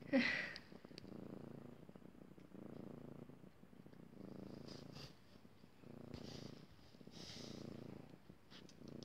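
Mother cat purring steadily while her newborn kittens nurse, the purr rising and falling in cycles of about a second and a half with each breath. A short, louder, higher sound comes right at the start.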